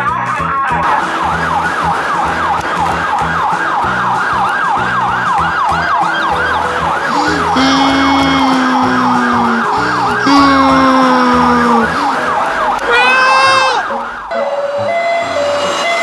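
A siren yelping in fast rising sweeps, about three a second, that stops about three quarters of the way through. Two longer held, slightly falling tones cut in around the middle, over background music with a steady beat.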